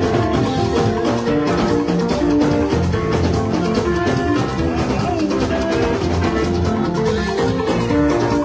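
Music with drums and melodic instrument lines, playing steadily throughout.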